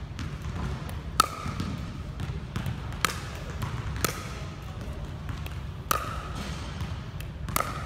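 Pickleball paddle striking a plastic pickleball on a Pickleboing trainer: five sharp pops, each with a short ringing ping, one to two seconds apart, over a steady low hum.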